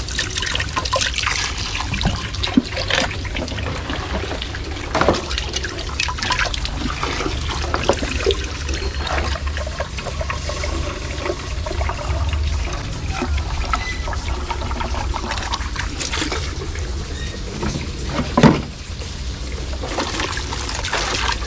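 Running water trickling and splashing as glass fish containers are filled and rinsed, with scattered light knocks of glass and plastic being handled and one louder clunk near the end.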